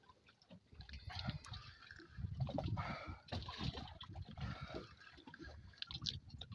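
Water lapping and sloshing irregularly against the side of a small boat on open sea.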